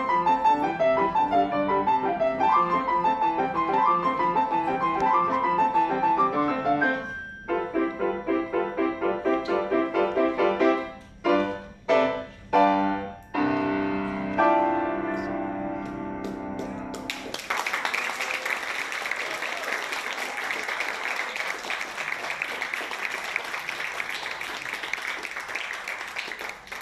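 Grand piano playing a lively piece, with a few loud, separated chords near the middle as the music draws to its close. It is followed, for roughly the last third, by audience applause.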